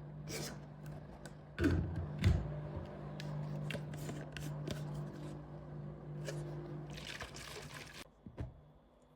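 Home workout noises: two heavy thuds about two seconds in, with scattered clicks and rustling over a steady low hum.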